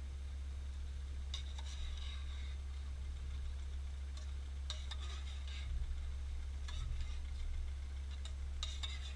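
A metal fork clinking and scraping against a small cooking pot and bowl while noodles are handled, in short scattered bursts of clinks, over a steady low hum.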